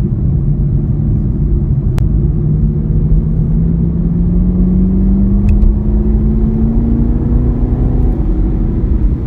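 Chevy SS's 6.2-litre LS3 V8 pulling under steady acceleration, its pitch climbing gradually over several seconds above a heavy road and wind rumble. A single sharp click about two seconds in.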